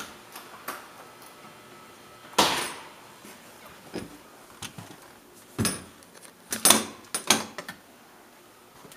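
Apartment entry door being opened and handled: one sharp clack about two and a half seconds in, then a cluster of sharp clacks and knocks near the end.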